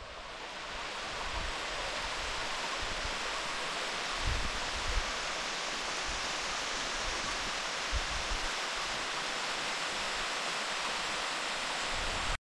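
Steady rushing of fast-flowing water, fading in at the start and cutting off abruptly at the end, with a few low bumps partway through.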